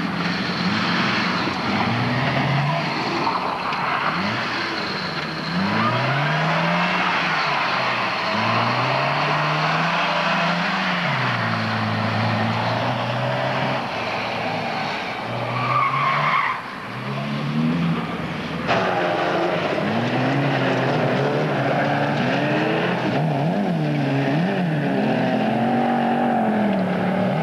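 Folkrace car engine on a dirt track, revving up and dropping back again and again as it changes gear and slides through the corners. After a sudden cut about two-thirds through, several cars' engines run together.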